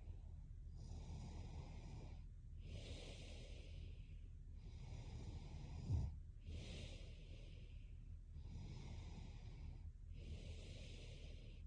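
A sleeping woman's slow, heavy breathing, each airy breath in or out lasting about a second and a half, with short pauses between. A soft bump sounds about halfway through.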